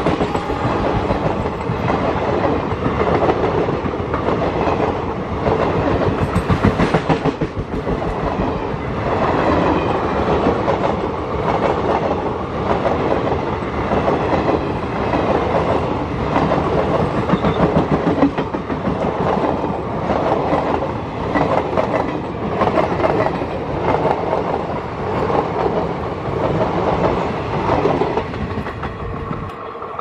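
Passenger coaches of an Indian Railways express train rolling past at speed, their wheels clattering rhythmically over the rail joints in groups about once a second. The sound drops away sharply near the end.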